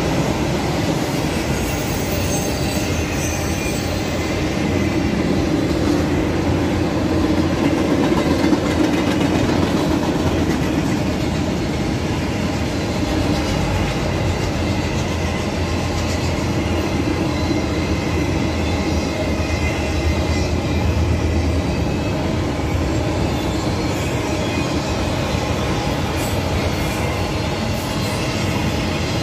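Freight train of autorack cars rolling past, a steady low rumble of steel wheels on the rails.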